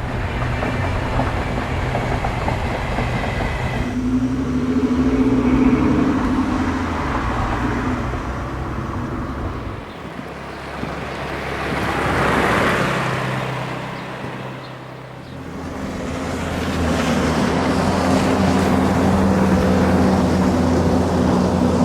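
Vehicle engine noise: a steady engine drone, a wash of noise that swells and fades about halfway through, then a steady engine drone again.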